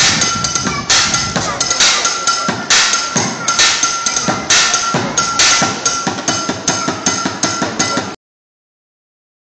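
Improvised drum kit of plastic buckets, kitchenware and a cymbal played with sticks in a fast, steady beat, heavier accents about once a second over quick strokes, with a metallic ring held underneath. The sound cuts off abruptly about eight seconds in, into dead silence.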